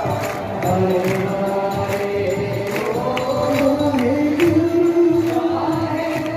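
Music with a slow, chant-like sung melody over a regular beat.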